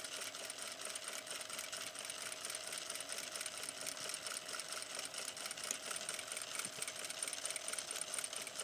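Sewing machine running steadily, stitching through fabric with a fast, even ticking of the needle mechanism.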